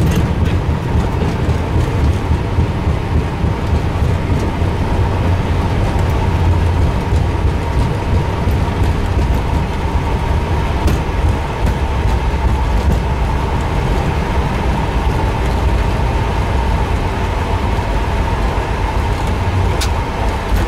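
Boeing 777 rolling down the runway after touchdown, heard from inside the cockpit: a steady low rumble from the airframe and landing gear on the runway, with a faint steady high hum and a few light clicks on top.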